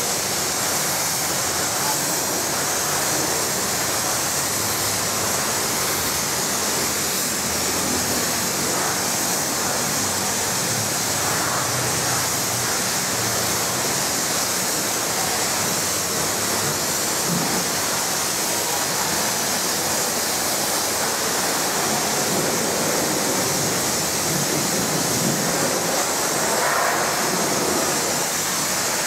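Pressure-washer wand spraying a high-pressure water jet: a steady, unbroken hiss.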